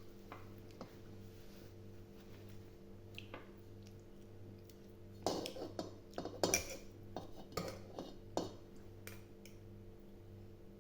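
Tableware clinking and clattering at a meal, a quick run of sharp knocks from about halfway through, over a steady low electrical hum.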